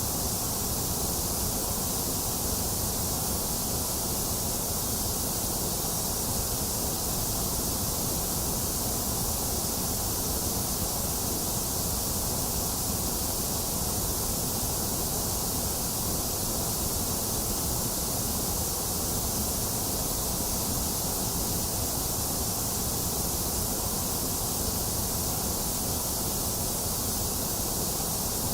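Box fan running steadily, blended with rain: a constant, unchanging hiss with a low rumble underneath.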